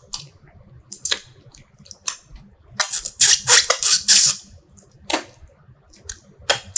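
Close-up eating sounds of a person chewing fish curry and rice: sharp mouth clicks and lip smacks, with a quick run of them about three seconds in.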